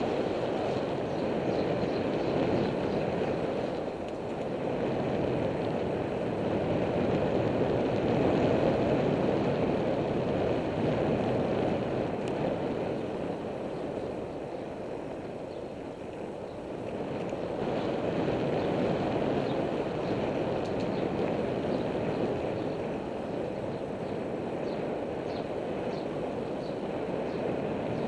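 Wind rushing over the microphone and road noise from a bicycle in motion: a steady rush of noise that swells and eases several times.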